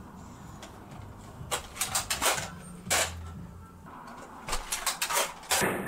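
Nerf dart blaster being handled, loaded and primed: a series of sharp plastic clicks and clacks, coming in two bunches.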